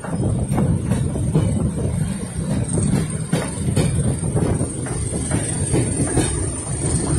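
Goods wagons of a freight train running along the line, heard from on board: a steady low rumble of wheels on rail with irregular clanks and knocks from the running gear.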